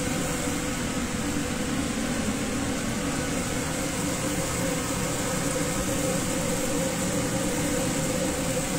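Steady whir of a commercial kitchen's exhaust hood fan and gas range, with a pan of butter chicken gravy bubbling on the burner.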